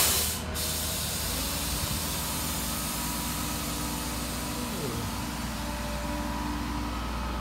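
Vehicle engine running steadily, with a short loud hiss at the very start and a brief falling tone about two-thirds of the way through.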